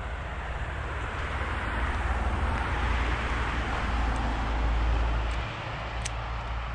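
Wind rumbling on an action camera's microphone over a steady hiss, the rumble building and then dropping away abruptly near the end.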